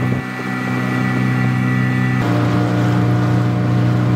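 Small outboard motor on an inflatable dinghy running steadily under way at a constant pitch, its tone shifting slightly about two seconds in.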